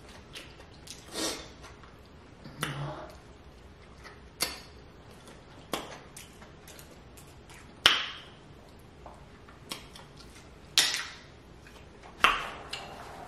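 Cooked snow crab leg shells being cracked and picked apart by hand: sharp snaps and clicks every second or two, with quiet in between.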